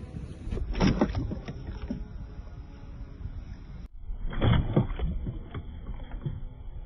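Water splashing and sloshing in two bursts, about a second in and again past the middle, over a steady low rumble.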